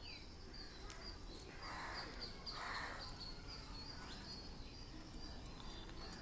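Two short rustles of holy basil (tulsi) leaves being plucked by hand, about two and three seconds in, over a steady run of high chirps from a small creature outdoors, about three a second.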